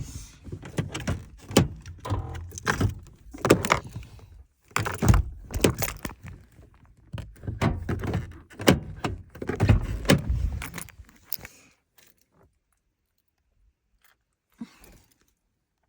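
Irregular clattering and knocking of objects being handled, a rapid jumble of sharp strokes for about eleven seconds that then stops, leaving near silence with one faint knock near the end.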